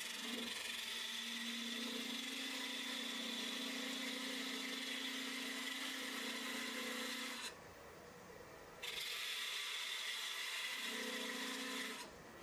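Turning tool cutting into a spinning monkey pod bowl blank on a wood lathe: a steady hiss of the cut with a low hum under it. It stops for about a second about halfway through, starts again, and stops shortly before the end.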